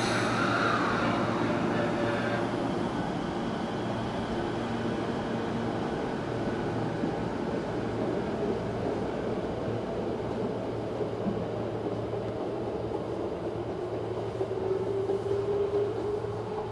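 Tokyo Metro 05N-series subway train pulling out of an underground station and running off into the tunnel. Steady motor and wheel noise echoes off the platform, with a falling tone in the first couple of seconds.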